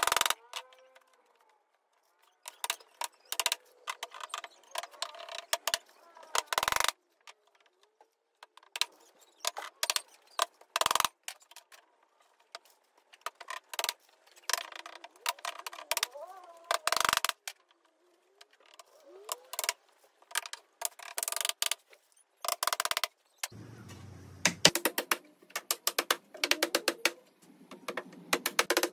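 Claw hammer driving nails into timber fence-paling boards: sharp strikes in quick runs of several blows, with short pauses between runs.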